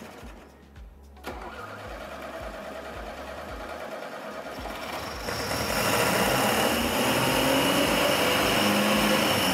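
Car engine with its carburetor removed, fed only by gasoline dripping from an IV bag into the intake manifold, being started: it turns over from about a second in, then gets markedly louder about five seconds in as it runs. The gasoline is not getting into the engine, and it is on the point of stalling.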